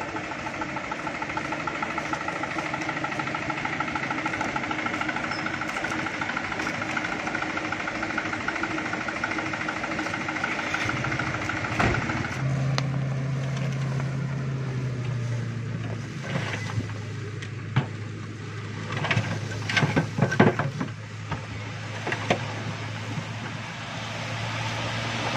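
Light dump truck's diesel engine running steadily. After a cut, the engine holds a steady higher speed as the tipper bed is hoisted to dump its load of fill soil, with irregular knocks and rattles as the load slides out.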